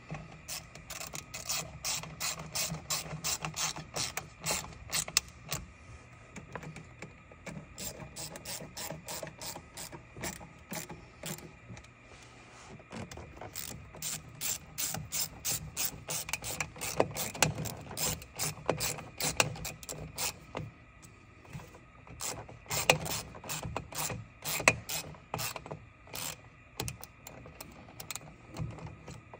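Hand ratchet wrench clicking in quick runs of strokes as fasteners are run down, with short pauses between the runs.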